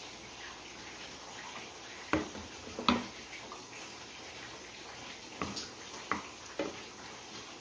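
A spoon clinking on a glass baking dish while creamy chicken sauce is spooned over fried potato slices: five sharp clinks, two a little before the middle and three in the second half, over a faint steady hiss.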